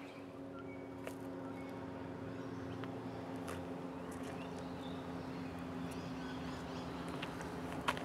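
A steady low hum with a few faint short bird chirps. Near the end comes one sharp knock, a wooden hive box set down onto another.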